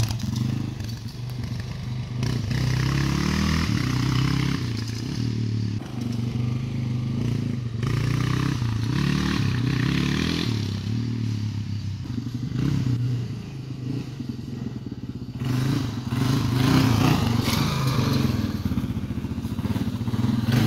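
1989 Yamaha XT350's freshly rebuilt single-cylinder four-stroke engine running as the bike is ridden around, its pitch rising and falling again and again with the throttle.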